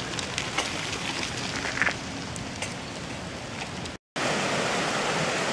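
Light crunches and ticks of mountain bike tyres on a gravel path over a steady hiss. After a cut about four seconds in, the louder, steady rush of a fast-flowing forest stream.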